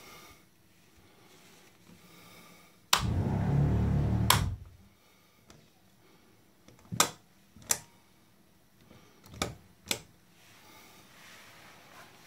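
Switches and push-button circuit breakers clicking on a yacht's DC electrical panel. A click about three seconds in starts a loud low hum that lasts about a second and a half and stops with another click. Five sharper single clicks follow over the next few seconds.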